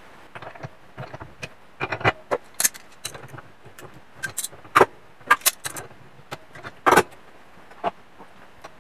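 Irregular sharp metallic clicks and clinks of steel tools and parts being handled, as the collet nut of a tool holder clamped in a vise is loosened with a pliers wrench and the end mill is pulled out. The loudest clinks come about five and seven seconds in.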